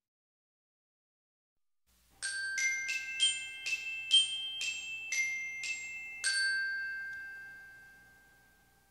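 Short glockenspiel jingle starting about two seconds in: about eleven quick struck bell notes, the last one ringing on and fading away.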